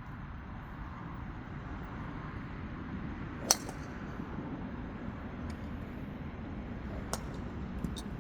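A golf driver striking a ball once with a sharp crack about three and a half seconds in, over a steady low rumble of range background noise; a few fainter, more distant strikes come near the end.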